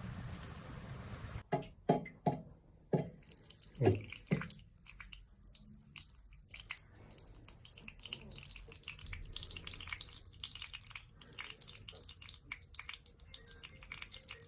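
Water dripping: a handful of separate drops over a few seconds, then a faint, continuous fine crackle of trickling water.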